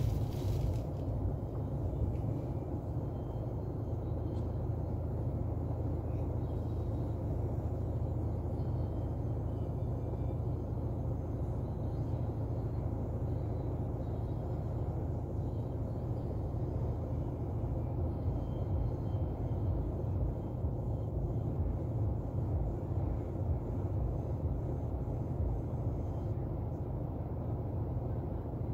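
Car engine idling while the car waits at a junction, heard from inside the cabin as a steady low rumble.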